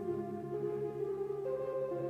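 Soft ambient background music: sustained synth pad chords with notes changing slowly.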